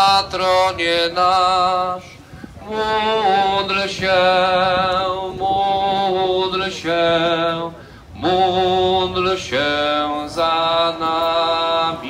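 A man's voice singing a hymn, long held notes with vibrato sung in phrases, with short pauses about two seconds in and again about eight seconds in.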